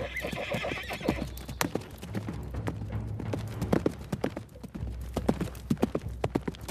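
Horse hooves clip-clopping in irregular quick clusters that grow denser in the second half, with a horse whinnying briefly at the start.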